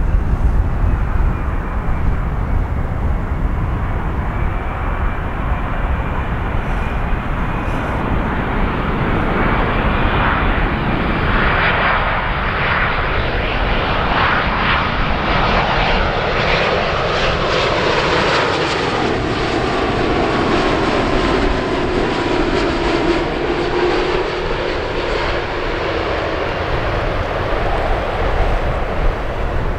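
Boeing 787-10 airliner's twin jet engines running on final approach, a continuous roar with whining tones that slide down in pitch as the aircraft passes the listener.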